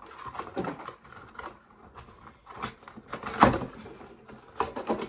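A toy playset's box and packaging being handled and opened: scattered rustles and clicks, with one sharper knock about three and a half seconds in.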